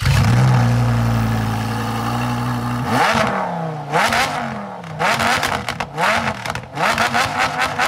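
Lamborghini Huracán Performante's V10 engine bursts into a loud, steady high idle, then is revved about five times in quick blips roughly a second apart, each rising and falling in pitch.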